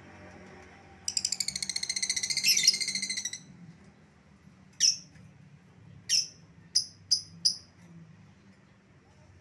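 Lovebird giving a rapid chattering trill (the "ngekek" call) for about two seconds, then five short, sharp high chirps.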